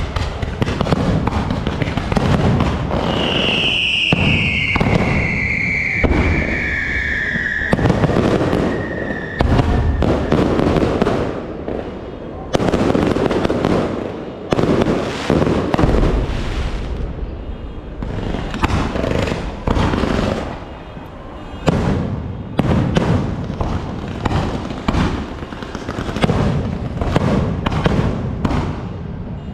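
Fireworks display: a dense, continuous barrage of bangs and crackling, with a high whistle falling in pitch for several seconds near the start.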